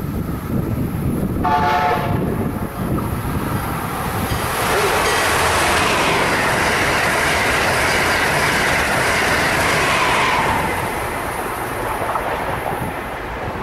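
Amtrak Acela Express high-speed trainset running through the station without stopping. A short horn blast comes about a second and a half in. From about four and a half seconds the train passes with a loud, steady rush for about six seconds, which then fades.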